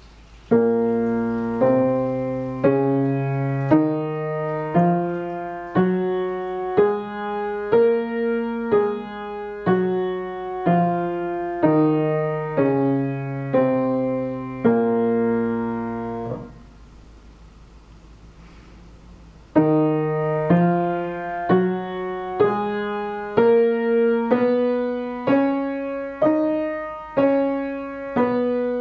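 Upright piano played with both hands together: a one-octave natural minor scale, one note about every second, going up and then back down. After a pause of about three seconds, a second scale begins at the same pace.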